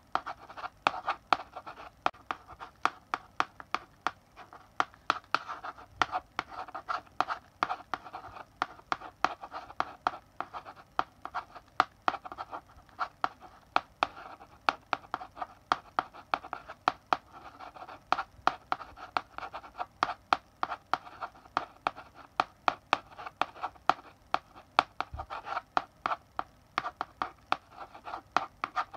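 Chalk writing on a blackboard: a steady run of sharp taps and short scratchy strokes, several a second, as letters are written.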